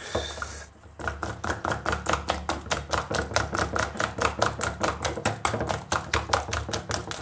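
A wire coil whisk beating a thick egg and flour paste in a stainless steel bowl. From about a second in it makes a fast, even clicking of metal against the bowl, about six or seven strokes a second.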